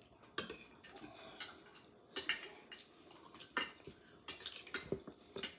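Irregular light clicks and clinks of clam shells and chopsticks being handled at a bowl of steamed shellfish.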